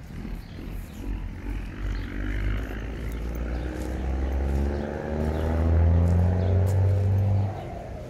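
A motor vehicle passing by: its engine grows louder over several seconds with a slightly falling pitch, then drops away sharply near the end.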